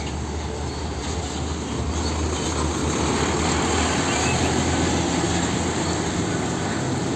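Heavy diesel tractor-trailer hauling a shipping container driving past close by: steady engine drone with tyre and road noise, growing a little louder through the middle as it draws level.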